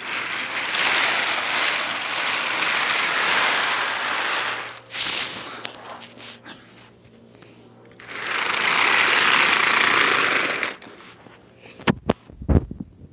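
Thomas & Friends toy engines pushed by hand along plastic toy track, their wheels rattling steadily in two long runs of several seconds each, with a short sharp scrape about five seconds in and a few clicks near the end.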